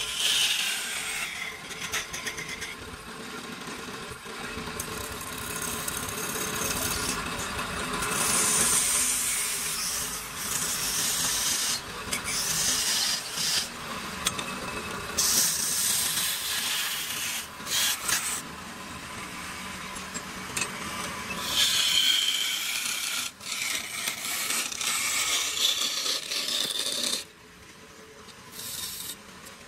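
Wood lathe spinning a large wooden blank while a hand-held turning tool cuts into it: a hissing scrape of shavings that swells and fades with each pass over the lathe's running hum, quieter near the end.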